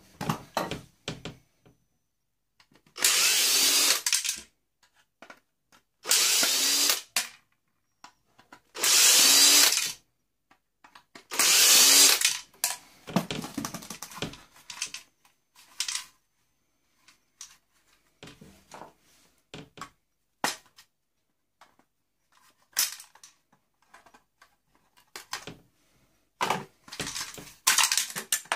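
Power drill-driver running in four short bursts of about a second each, each winding down as it stops, with clicks and clatter of small parts and plastic in between, as screws are backed out of a boombox. More short bursts come near the end.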